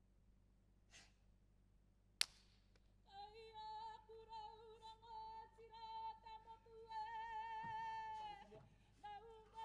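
A single sharp knock about two seconds in, then a woman's high voice calling in long, wavering held notes: a Māori karanga.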